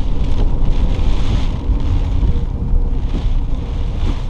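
Low rumble and wind buffeting in a moving vehicle, with a faint steady tone in the background.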